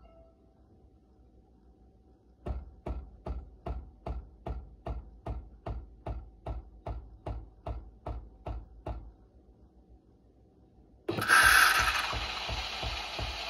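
Philips EP5144/70 (5400 series LatteGo) automatic espresso machine: its pump pulses in a regular ticking rhythm, about two and a half beats a second, for some six seconds, then after a short pause a loud hiss starts suddenly as the machine begins frothing milk through the LatteGo, the pump pulses going on underneath.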